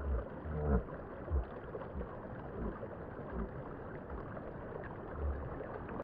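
Shallow stream babbling as it runs over a flat rock bed: a steady gurgling rush, with a few low bumps.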